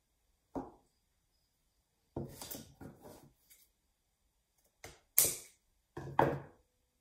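Small hand tools being picked up and put down on a tabletop: a series of sharp knocks and clatters, the loudest about five seconds in.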